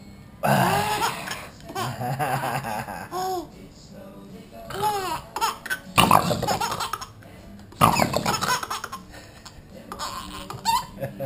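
Baby laughing in repeated bursts of giggles and belly laughs while her feet are being nibbled.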